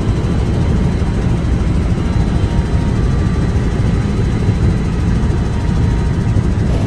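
Helicopter engine and rotor noise heard from inside the cabin: a loud, steady low rumble.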